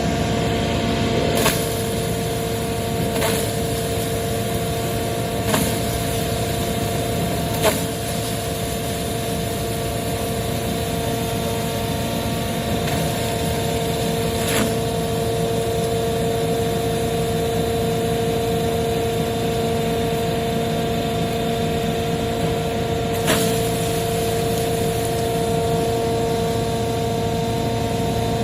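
Wood sawdust crusher running steadily with a high, even hum over a dense mechanical rush, broken by half a dozen sharp, isolated knocks.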